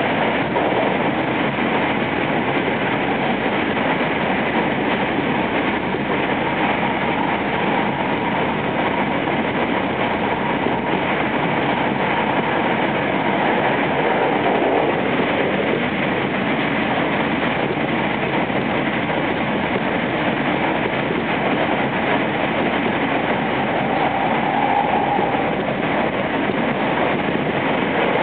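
Running noise inside a JR West 225 series electric train with Toshiba traction equipment, travelling at speed: a steady rumble of wheels on the rails that holds at an even level.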